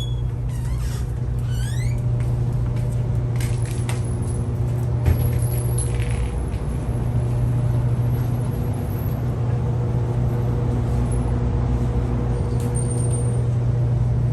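Steady low mechanical hum, a constant drone with a few steady higher tones over it, and a single brief knock about five seconds in.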